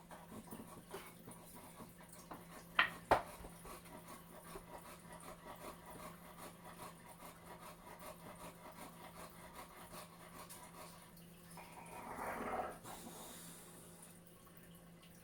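Two sharp knocks about a third of a second apart, like wood being struck or set down, then faint handling noise with a brief rustling swell near the end.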